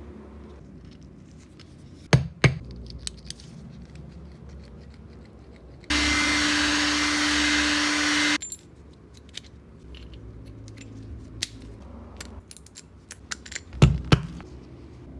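Makita 9558HN angle grinder switched on and running unloaded for about two and a half seconds with a steady whine, then cutting off suddenly. Knocks and clicks of the tool being handled come before and after.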